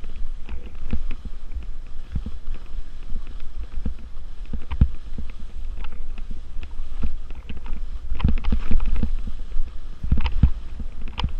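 Skis carving turns through soft, chopped-up spring slush: irregular scraping and knocking of the skis on the snow over a steady low rumble, growing busier and louder about eight seconds in.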